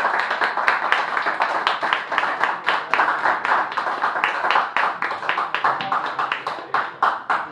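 A small audience applauding after a poem, the clapping thinning out and stopping near the end.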